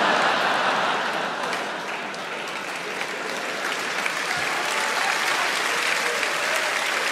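Large theatre audience applauding in response to a stand-up punchline. It is loudest at the start, eases slightly after about a second, then holds steady.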